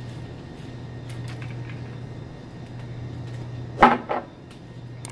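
Steady low hum, then near the end two quick loud knocks about a third of a second apart: the burger platter being handled on the tabletop.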